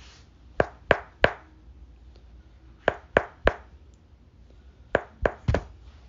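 Percussion taps in three sets of three sharp knocks, about two seconds apart, demonstrating the dull percussion note heard over a solid mass such as a lung tumor.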